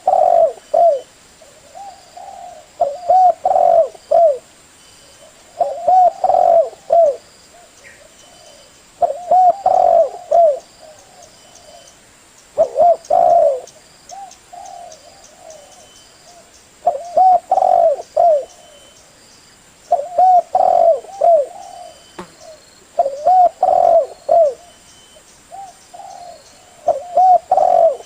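Male spotted dove cooing: short phrases of a few low coo notes, repeated about every three to four seconds. This is the call used to lure other spotted doves.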